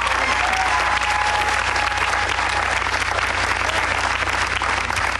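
Applause: a group of people clapping steadily, with a steady low hum underneath.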